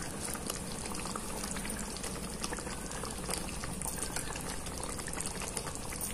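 Thick tomato-and-butter chicken gravy simmering in a pan: a steady bubbling with many small pops.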